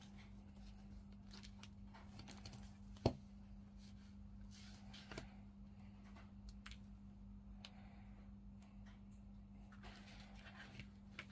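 Faint sounds of tweezers handling small plastic model parts: scattered light clicks and taps, with one sharper click about three seconds in, over a steady low hum.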